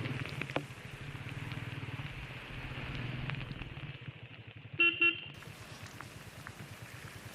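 Royal Enfield Meteor 350's single-cylinder engine running steadily on the move, with two short blasts of a vehicle horn about five seconds in, the loudest sound.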